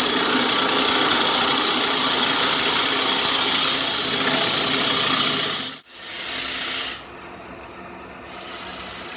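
A bowl gouge cutting into a blank of wet wood spinning on a wood lathe, shaping the bowl's foot: a steady, loud scraping hiss. It cuts off sharply about six seconds in, then goes on quieter and duller.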